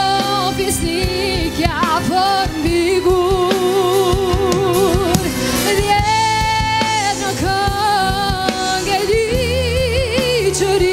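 A woman singing an Albanian song in long held notes with a wide, wavering vibrato, backed by a live band of bass guitar, drums, violin and keyboards.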